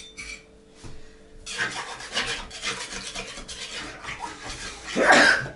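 Rough, continuous scraping of a trowel and bricks against mortar, with a louder scrape near the end.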